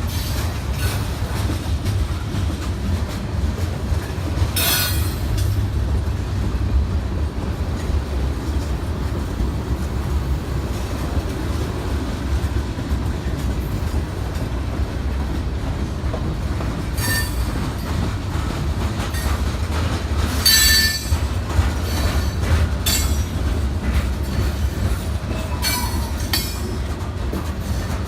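Railroad cars rolling past with a steady low rumble, broken by several short, high-pitched wheel squeals; the loudest comes about twenty seconds in.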